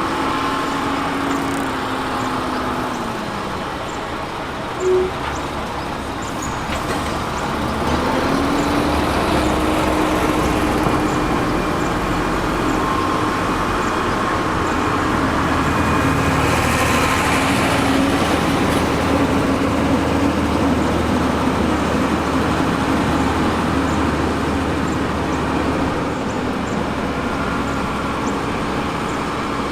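Diesel engine of heavy earthmoving machinery running under load. Its pitch drops, then rises again and holds steady. A brief loud beep sounds about five seconds in.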